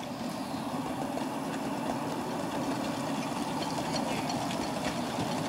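Miniature railway locomotive's engine running steadily as the ride-on passenger train approaches, growing slowly louder, with faint light ticks over the top.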